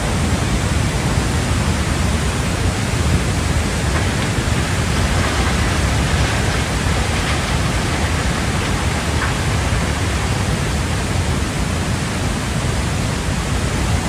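A muddy flash flood torrent rushing down a mountain river channel: a loud, steady rush of water with a deep rumble underneath.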